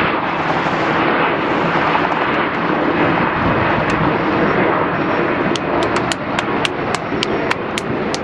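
Steady jet engine noise from airliners, a continuous rushing roar. Over the last three seconds about a dozen sharp clicks come through on top of it, roughly four a second.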